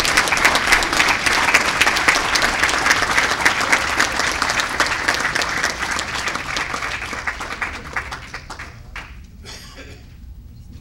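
A room full of people applauding, dense clapping that thins out and dies away over the last few seconds, leaving a few scattered claps.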